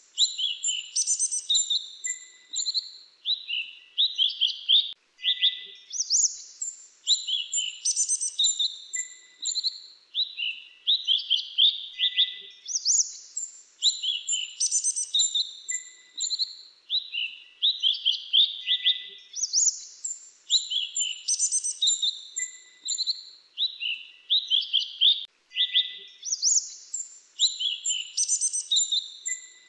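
Grey-chinned minivet song: rapid runs of high, sharp chirps and short trills. The same phrase repeats about every six and a half seconds.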